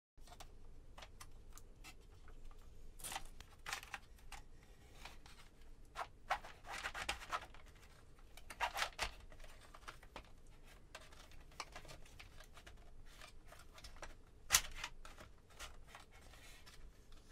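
Plastic parts of a Sentro 22 circular knitting machine being handled and fitted together: scattered clicks, scrapes and rustles, with one sharp click about 14 seconds in.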